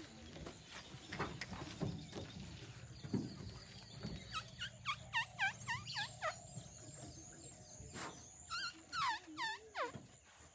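A bird calling in runs of quick swooping notes, repeated about twice a second: one run about four seconds in and another near the end. A low hum sits underneath through the first half.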